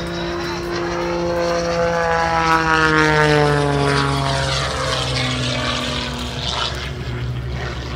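Engine of a single-engine aerobatic propeller plane flying past. Its drone swells to a peak about three seconds in, then falls in pitch as the plane moves away.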